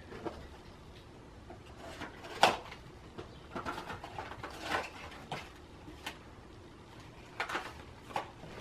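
Plastic product packaging being handled and worked open by hand: scattered rustles, clicks and small squeaks, the loudest about two and a half seconds in.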